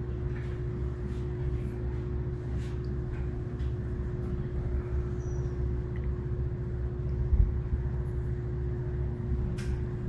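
Steady low rumble of an idling engine with a constant hum, and one low thump about seven seconds in. A few faint clicks sit on top.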